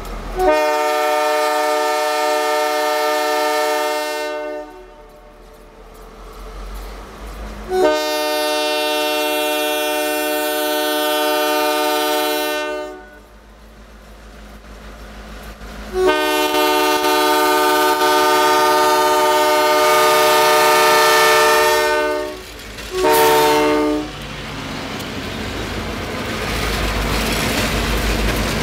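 Canadian Pacific GP38-2 diesel locomotive's air horn sounding a chord of several notes: three long blasts, then a short one. After the last blast the locomotives' engine rumble and wheel noise on the rails grow as they pass close by near the end.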